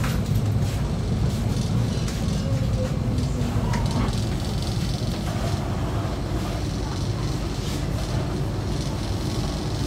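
Steady low rumble inside a KA Argo Cheribon economy passenger coach standing at a station, with faint passenger voices and a few light clicks.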